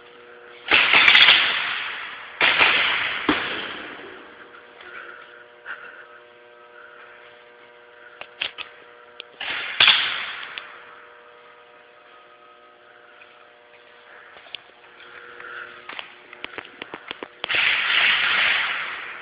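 A steady electrical hum, broken by several loud bursts of rushing noise and scattered sharp clicks.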